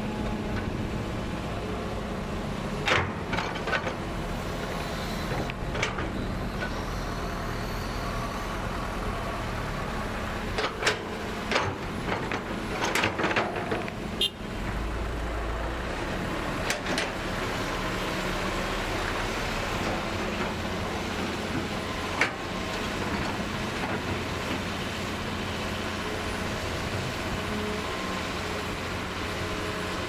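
Hitachi hydraulic excavator's diesel engine running steadily under load while it digs and swings, with scattered sharp clanks and scraping from the bucket in soil and rock. The clanks bunch together about halfway through.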